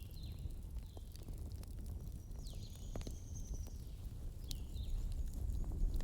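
Wood fire burning with a low rumble and scattered sharp crackles and pops. Short high chirps, like a small bird calling, come a few times near the start and again near the end, with one longer high call in the middle.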